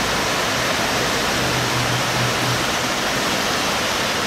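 White-water river rapids rushing over rock ledges: a loud, steady rush of churning water.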